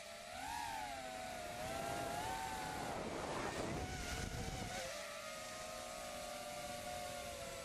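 FPV racing quadcopter's motors and propellers whining, the pitch rising and dipping with the throttle. A rush of air noise swells for a couple of seconds in the middle.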